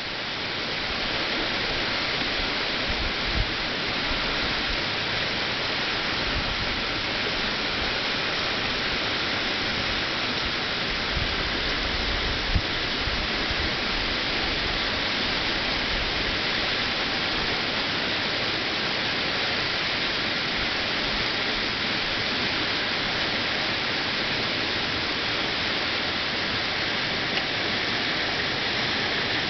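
Swollen creek in flood after heavy rain, its water rushing past in a steady, unbroken noise.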